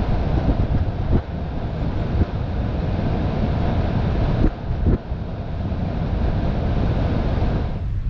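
Wind noise from a paraglider's airflow rushing and buffeting over an action camera's microphone in flight, thinning near the end.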